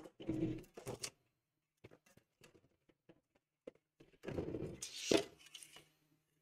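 Handling noise at a repair bench: scattered light clicks and two bursts of rustling and scraping, one in the first second and a longer one from about four seconds in, with a sharp knock near the end of it.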